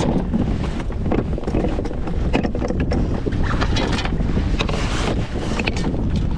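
Wind buffeting the microphone in a steady low rumble, with scattered clicks and knocks as a fish gripper and tackle are handled on a kayak.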